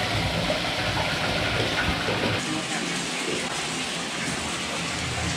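Bathtub faucet running, water pouring steadily into the tub as it fills; the low rumble drops away about halfway through.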